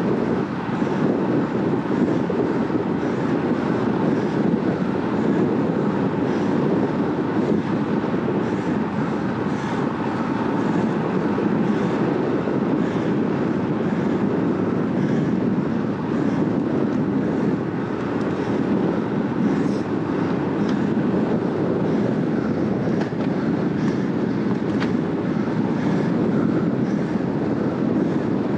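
Steady rush of wind over the microphone, mixed with the rolling noise of a road bicycle's tyres on asphalt at about 40 km/h.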